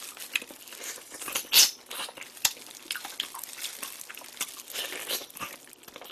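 Close-miked eating sounds of someone chewing and biting sauced pig's trotters (yangnyeom jokbal): irregular wet smacks, clicks and crunchy bites.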